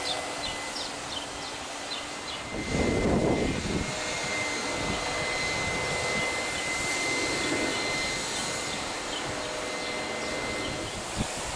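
Embraer ERJ-145 regional jet on approach with its gear down: its rear-mounted Rolls-Royce AE 3007 turbofans make a steady jet rush with a thin high whine. A brief louder burst comes about three seconds in.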